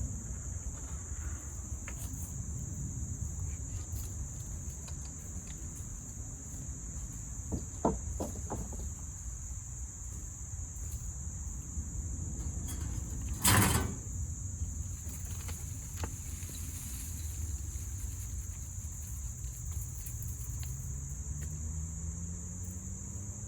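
Steady high shrill of insects, with a low rumble underneath. A sharp knock comes about halfway through, and near the end a low hum rises in pitch.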